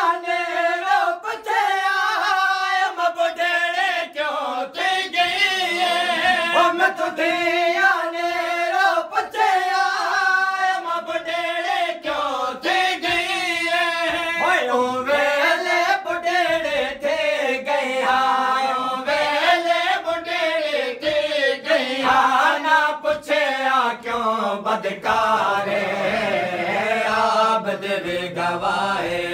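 Group of men chanting a Punjabi noha (mourning lament) in unison, the refrain rising and falling in long phrases, with even beats of matam, hands striking chests, keeping time.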